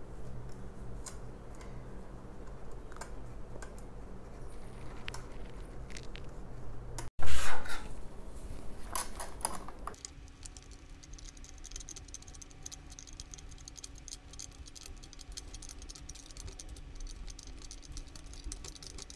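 Small metal clicks and rattles as a nut and bolt are handled and tightened by hand at the joint where the steering rod meets a toddler tricycle's front fork. A brief loud clatter comes about seven seconds in, then a run of fine, quick, faint clicks.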